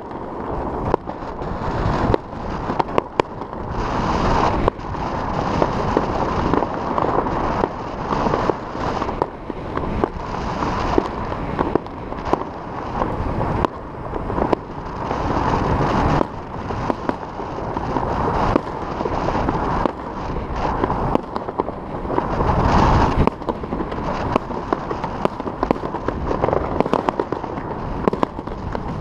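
Fireworks salvos going off all over the city: a near-continuous barrage of sharp bangs and crackles, one after another, with no let-up.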